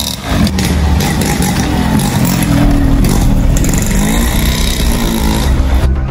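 Small moped engine revving as it pulls away with two riders aboard, its pitch rising and falling; it cuts off just before the end.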